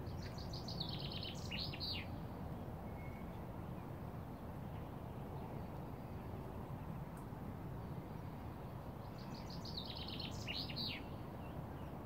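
A small songbird sings two short song phrases about eight seconds apart. Each phrase is a quick run of repeated high notes ending in a falling flourish, over a steady low background rumble.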